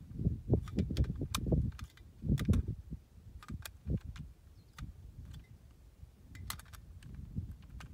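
Scattered sharp metallic clicks and clacks of a semi-automatic pistol and its magazine being handled while a magazine is loaded, over low rumbling noise.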